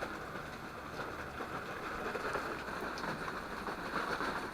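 Steady splashing and pouring of water falling down a rock cliff face in a large waterfall.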